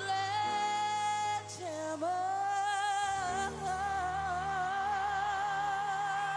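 Live pop vocal by a female singer with band accompaniment. She sings a shorter note, then scoops up about two seconds in into a long held high note with wide vibrato.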